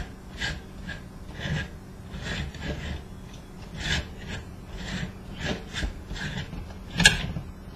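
Plastic parts of a rear-projection TV projector unit scraping and rubbing in a series of short rasping strokes as a component is twisted loose and handled. A sharp click comes about seven seconds in.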